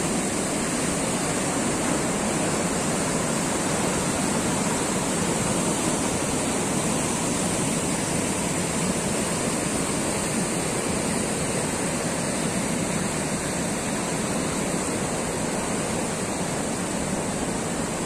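Steady rushing of fast whitewater pouring through an artificial slalom kayak channel, fed by river water that is dammed and diverted into it to make the current strong.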